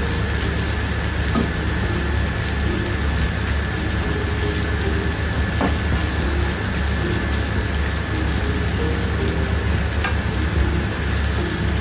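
Sliced meat sizzling steadily on a Kenwood electric grill plate, with a few faint clicks of utensils.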